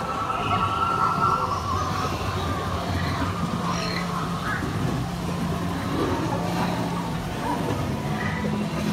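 Ambient soundtrack of a dark ride: sustained low and mid droning tones over a steady hiss.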